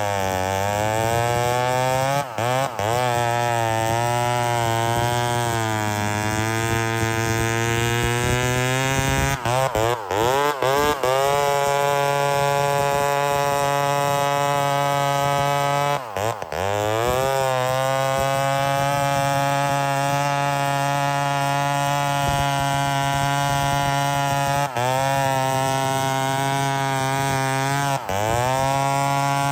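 Lombard 5.1 cubic-inch (about 83.5 cc) two-stroke chainsaw with a 36-inch bar running at full revs through a cut, its engine speed dropping and climbing back several times.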